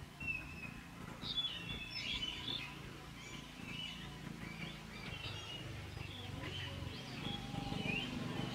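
Birds chirping and calling in short, scattered notes, some rising or falling in pitch, over a steady low rumble of background noise.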